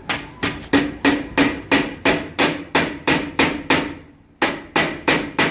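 Small hammer tapping along a window frame, fixing a new glass pane in place: quick, even knocks about three a second, stopping briefly near the end and then going on.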